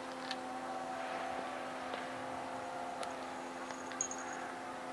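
A steady low hum with a few faint clicks, and a short high whistle about four seconds in.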